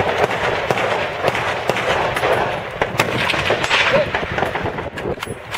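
Rifle gunfire on a range: several sharp cracks, the clearest about three seconds in and near the end, over a steady rushing noise.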